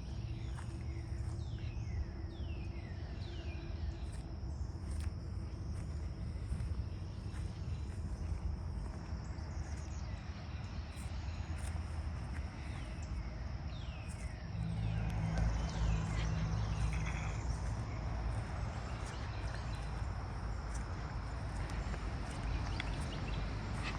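Outdoor ambience: a steady high insect drone over a low rumble, with a few quick falling bird chirps in the first few seconds. About two-thirds of the way through the rumble and a wider noise grow louder.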